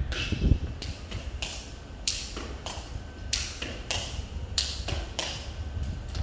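Sharp slaps and taps in an irregular rhythm, a few every second, from a wushu routine on a tiled floor: the palm slapping the foot on straight kicks and shoes striking and scuffing the tiles, over a low steady rumble.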